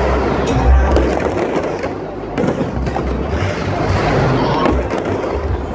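Fireworks going off close by: repeated bangs and crackling over a heavy low rumble.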